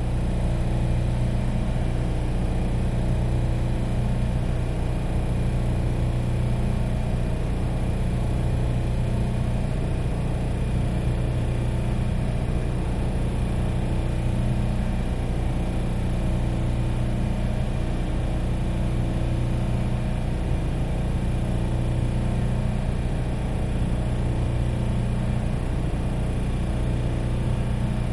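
Industrial air compressor running steadily: a constant low hum that does not change.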